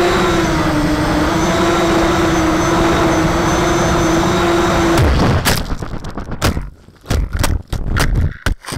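ZMR-250 FPV quadcopter's motors and propellers whining at a steady pitch, heard from its onboard camera. About five seconds in the whine cuts off and a rapid string of sharp knocks and thuds follows as the quad crashes and tumbles on the ground.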